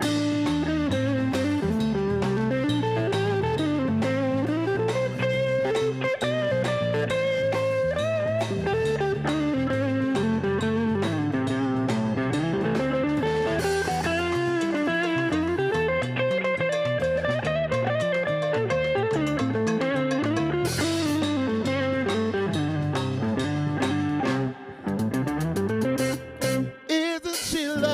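Live funk and soul band playing an instrumental break: an electric guitar lead over bass and drums, with a couple of short breaks near the end.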